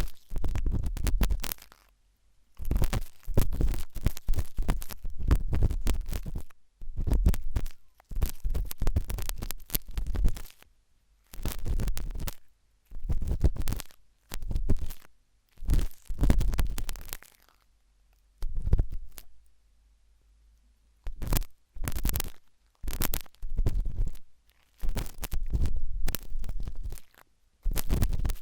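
Sharp toothpick scraping and scratching in an ear, in crackly bursts of a second or two with short pauses between, about a dozen strokes in all.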